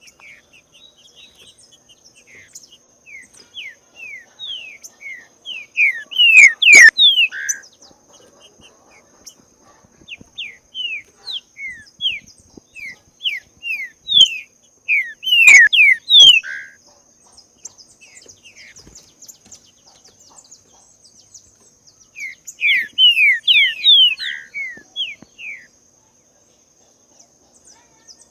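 Green-winged saltator (trinca-ferro) singing: three bursts of quick, falling whistled notes, with two sharp clicks, the loudest sounds, during the first two bursts. A steady high-pitched whine runs underneath.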